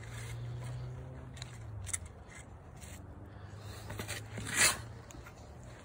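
Steel shovel blade driven into wet, rain-softened garden soil, giving a few light ticks and then one short, loud scrape about four and a half seconds in.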